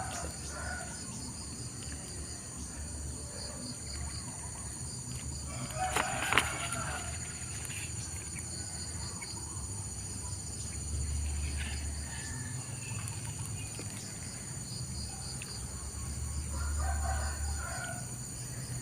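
A rooster crowing twice, once about six seconds in and again near the end, over a steady high drone of insects. A single sharp click comes just after the first crow.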